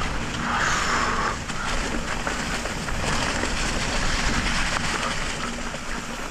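Electric mountain bike rolling along a dirt trail: tyre noise and wind rushing over the helmet-mounted camera's microphone, with a faint steady hum underneath.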